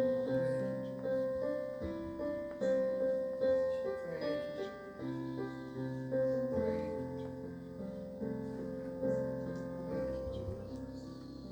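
Soft piano playing slow, sustained chords, the instrumental ending of a worship song.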